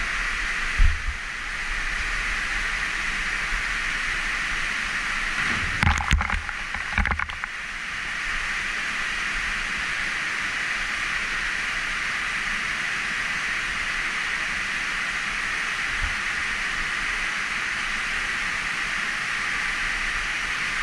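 Waterfall pouring into a plunge pool: a steady rushing hiss of falling water. A single thump about a second in, and a cluster of loud knocks and splashes around six to seven seconds in.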